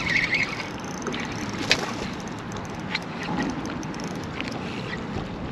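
Steady rush of wind and lapping water around a bass boat, with a few light clicks, one about a second and a half in and another around three seconds, while a spinning reel brings in a hooked fish.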